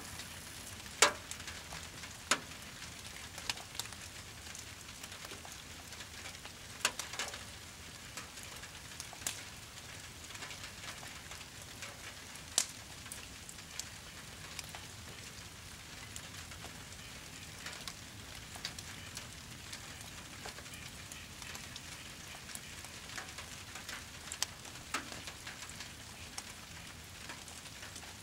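Brush pile fire crackling, with irregular sharp pops over a steady hiss of falling rain.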